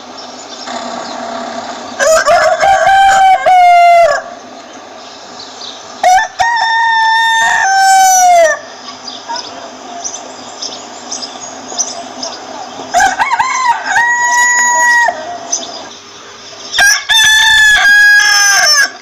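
Rooster crowing four times, each crow about two seconds long with a held note that drops at the end.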